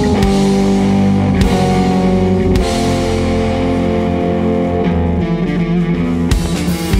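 Live rock band playing: a semi-hollow electric guitar and bass guitar hold sustained notes over a drum kit, with a few crashing drum hits.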